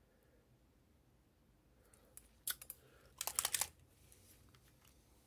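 A couple of light clicks, then a brief rattling clatter of small hard objects knocking together, as painting tools and the miniature on its handle are handled on the desk.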